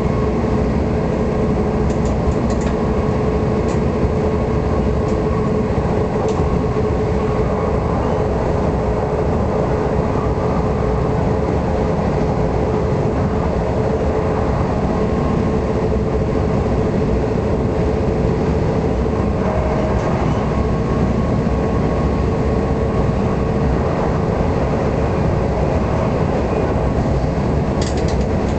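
NS passenger train running along the line, heard from the driver's cab: a steady rumble of wheels on rails with a steady hum over it, and a few light clicks.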